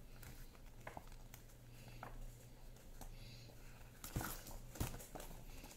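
Quiet handling of a paper picture book: soft rustles and light taps as it is lifted and its pages are turned, with two sharper taps about four and five seconds in. A low steady hum lies under it.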